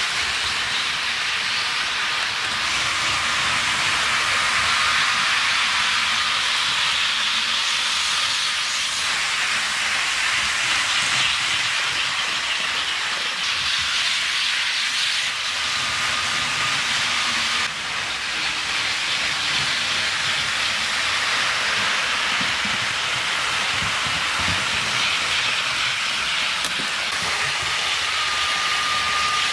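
HO-scale model trains running on sectional track: a steady rushing hiss of small metal wheels on the rails and the electric motors, with a faint thin whine that comes and goes.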